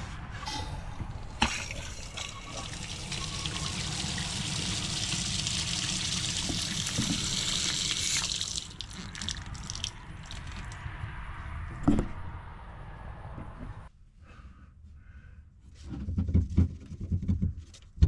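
Water running hard from a newly installed outdoor hose faucet for about eight seconds, then easing off to a weaker flow that stops about fourteen seconds in, with a single sharp click partway through the weaker flow. A few low thumps follow near the end.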